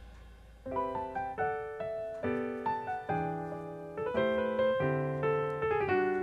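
Background piano music: after a brief lull, a melody of single notes and chords starts a little under a second in.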